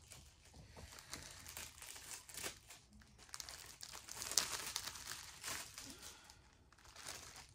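Candy wrapper crinkling and tearing as a candy is unwrapped by hand: a run of irregular crackles, the sharpest about four and a half seconds in.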